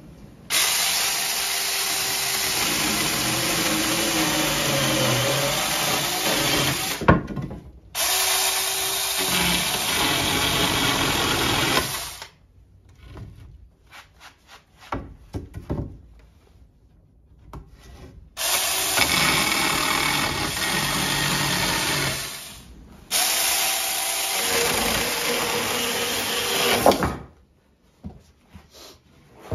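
Saker 20V cordless mini chainsaw running and cutting through thin softwood strips to make lumber stickers. It runs four times, each cut several seconds long, with a long pause of light knocks and clicks in the middle.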